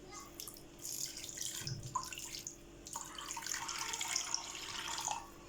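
Water being poured into a clay tanjia pot, a splashing trickle with a short break about halfway.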